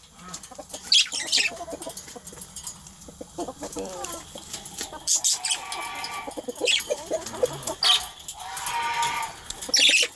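Budgerigars chattering and warbling, with short sharp chirps every second or two and longer stretches of warble, the longest near the end.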